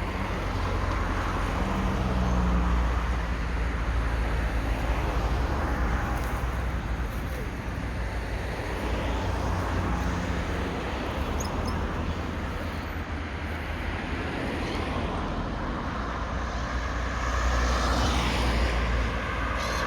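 Road traffic noise: a steady low rumble with vehicles swelling past every few seconds.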